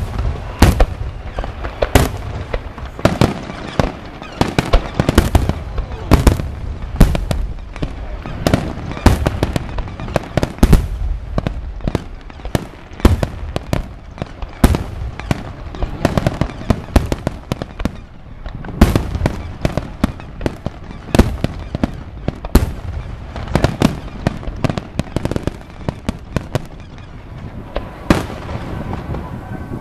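Aerial fireworks display: shells bursting overhead, sharp bangs in quick, irregular succession, several a second at times. Briefly sparser about seventeen seconds in, then the bursts pick up again.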